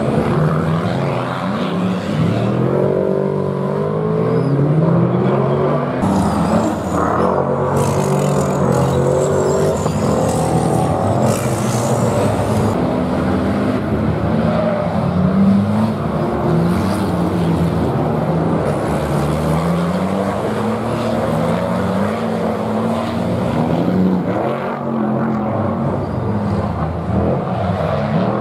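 Dakar race trucks, Tatras among them, and a rally pickup driven hard around a track: their diesel engines rev up and drop back over and over through gear changes.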